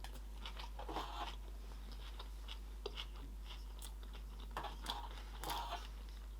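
Close-up chewing and biting of sushi rolls: a run of short, irregular crunches and small clicks.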